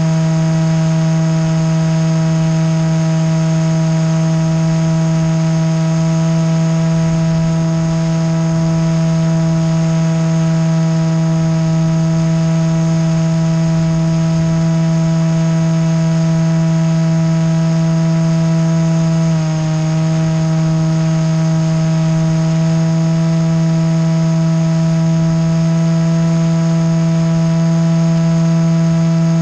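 Motor and propeller of a small aircraft running at a steady pitch, a constant hum with overtones; the pitch dips briefly about two-thirds of the way through and then settles again.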